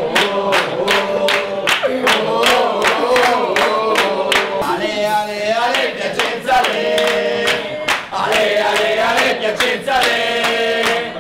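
A group of sports fans singing a chant together, clapping in time.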